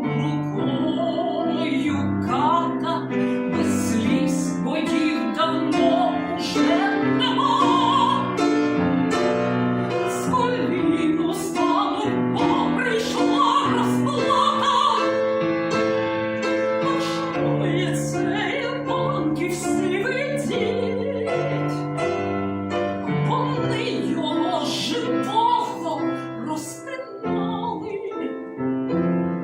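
Classical vocal piece sung in operatic style with vibrato, accompanied by piano.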